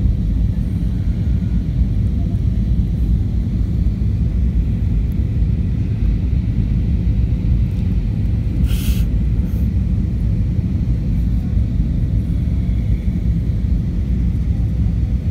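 Steady low rumble of engine and airflow noise heard inside the cabin of an Airbus A320-232, whose engines are IAE V2500s, on final approach. A short hiss about nine seconds in.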